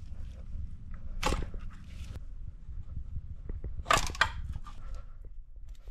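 A few sharp clacks and knocks, one about a second in and two close together about four seconds in, from the metal and plastic parts of an engine's high-pressure fuel rail assembly being handled and worked free. A low steady hum runs underneath.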